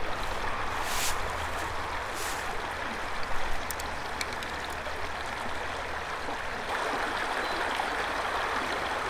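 Shallow, fast-flowing river rushing and babbling steadily over its bed, with a few brief swishes and clicks in the first four seconds.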